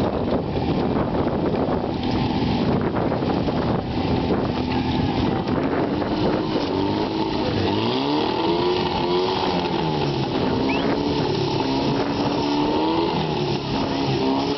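Portable fire pump's engine running hard; from about halfway in its revs drop and climb again several times as the throttle is worked.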